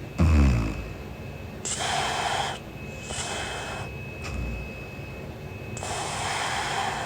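A sleeping young woman snoring: a loud, low snore about a quarter second in, followed by several noisy breaths.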